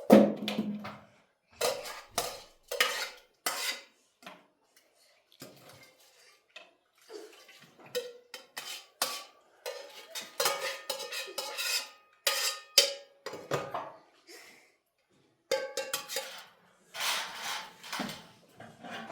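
Dishes and pots clattering as they are handled: a run of irregular knocks and clinks, some ringing briefly.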